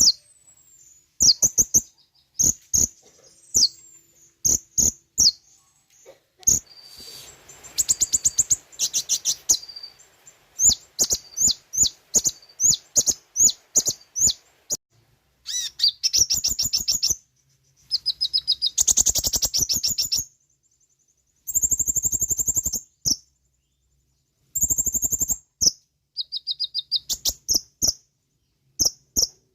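Kolibri ninja sunbird singing: bursts of rapid, high-pitched chirps and fast trills, broken by short pauses.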